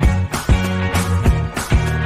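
Background pop music with a steady drum beat over a bass line.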